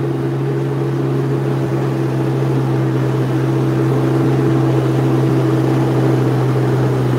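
Jet ski engine running at a steady cruising speed, a constant low drone, with rushing water and spray beneath it.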